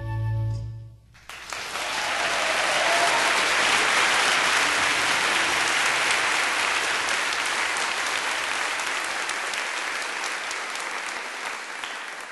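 Audience applauding, starting about a second in as the last held note of the music dies away, and tapering off near the end.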